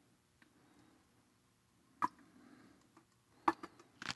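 Quiet, slow pour of liquid plaster from a plastic bucket into a mold, with a sharp click about two seconds in and a few more light clicks near the end.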